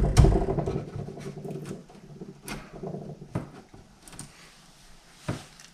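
Utility knife scraping and picking wood shavings out of a shallow latch-plate mortise in a door edge: scratchy scraping with a handful of sharp clicks spread through it.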